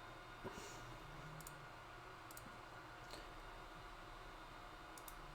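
Faint computer mouse clicks, a few scattered single clicks, over low room hum.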